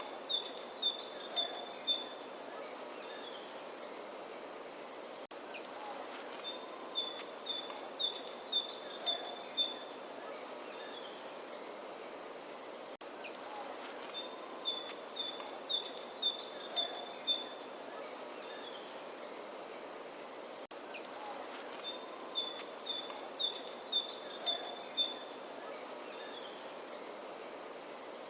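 Songbird singing the same phrase over and over, about every eight seconds: a quick falling whistle, then a run of short rapid notes alternating between two pitches. A steady background hiss runs underneath.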